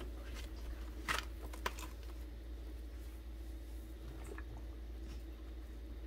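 Chicken of the woods mushroom being torn and broken apart by hand over a bowl of water: soft crackling and squishing, with two sharper snaps about half a second apart just after a second in. A steady low hum runs underneath.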